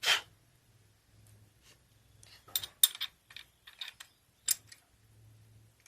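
Sharp metallic clicks and clinks of a steel washer and small engine parts being handled and fitted onto the clutch shaft of a motorcycle engine: one click at the start, then a quick cluster of clinks a couple of seconds later.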